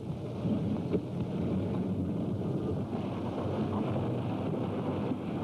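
Car engine running with a steady rumble, with a single click about a second in.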